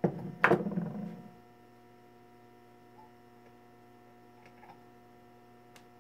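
Small metal armature parts handled at a vise: a sharp metallic clack about half a second in with a brief rattle and scrape for about a second, then a few faint clicks. A steady electrical mains hum runs underneath.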